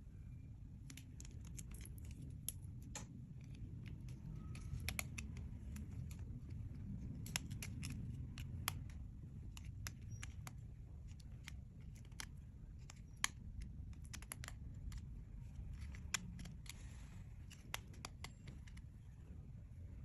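Clear slime being worked by hand, giving irregular small sticky clicks and pops over a low hum.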